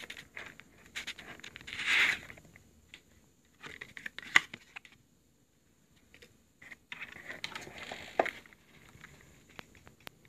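Handling noise from a stiff leather long wallet: irregular rustling and scraping of leather and a paper card insert, with scattered clicks. There is a louder rustle about two seconds in and another stretch of rustling with a sharp click near the end.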